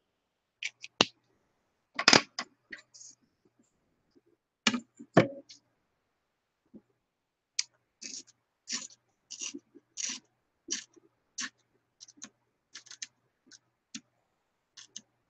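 Clicks, taps and light scrapes of paper and a steel ruler being handled and laid on a craft board. A few sharper knocks come in the first half, the loudest about two seconds in, then a run of lighter ticks about twice a second.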